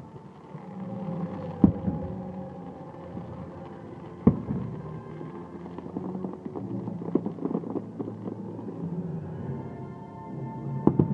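Fireworks show music playing over loudspeakers, cut by sharp firework bangs about a second and a half in, about four seconds in, and two close together near the end, with smaller crackles in between.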